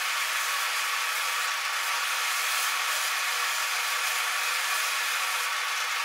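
Drill press spinning an abrasive wheel against a Raffir stabilized poplar knife handle, sanding it down: a steady, even hiss of the machine and the abrasive on the handle.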